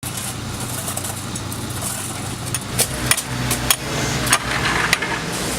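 Road-construction machinery engine running steadily, with a series of sharp knocks about half a second apart in the second half.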